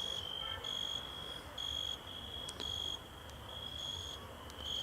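Crickets chirping: a high, steady trill that swells in short stretches about once a second over a fainter continuous trill.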